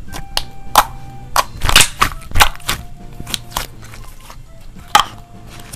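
Thick blue slime being pressed and squeezed by fingers, giving off irregular sharp pops and clicks as trapped air bursts out. A few pops are much louder than the rest, the strongest about two seconds in.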